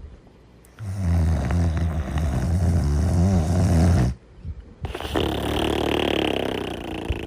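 Snoring during sleep: about a second in, a loud, low, rattling snore lasting about three seconds, then a short pause and a softer, breathier breath.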